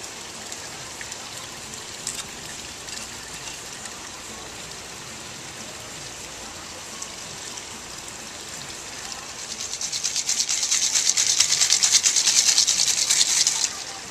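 Crushed ice rattling fast in a cocktail shaker, a metal tin capped over a glass, shaken hard for about four seconds in the second half. It stops abruptly.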